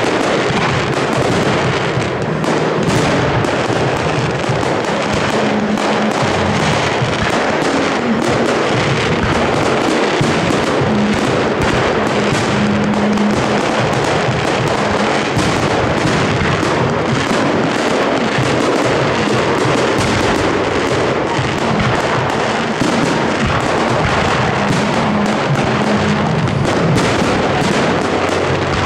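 Aerial fireworks display: a continuous barrage of shells bursting in quick succession, many sharp bangs overlapping one another, with music playing underneath.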